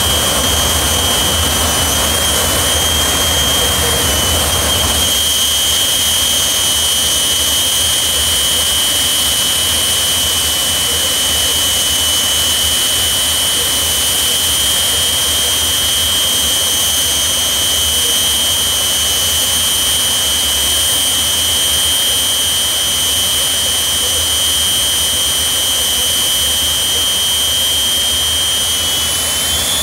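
Jet turbine engine of a pulling tractor idling with a steady high whine over a low rumble. Near the end the whine starts to climb as the turbine spools up for the pull.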